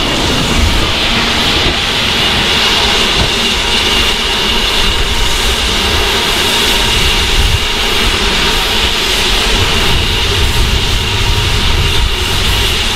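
Steam locomotive No. 813, a Port Talbot Railway 0-6-0 saddle tank, moving slowly away at shunting speed: a steady low rumble with a constant high hiss over it.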